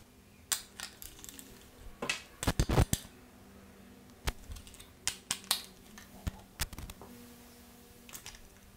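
Scattered light clicks and knocks of hand tools and small hardware, with a quick run of clicks about two and a half seconds in, as the bracket's screws and nuts are tightened.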